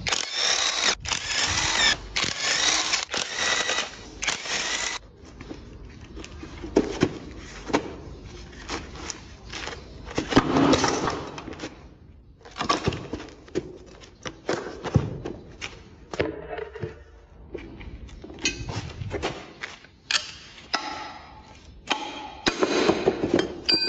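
A cordless impact wrench hammering for about the first five seconds as it undoes the end-bell bolts of an electric motor, followed by scattered metal clanks and knocks as the motor is taken apart.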